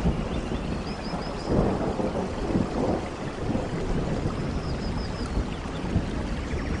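Steady rain on forest foliage, with low rumbling thunder underneath. A short high chirping call of four quick notes sounds twice, about a second in and near five seconds.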